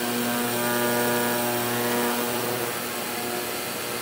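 Ultrasonic cleaner running with RC transmission parts in its bath: a steady electric buzz with a hiss of the agitated liquid. The buzz is strongest in the first half and its upper tones thin out about two seconds in.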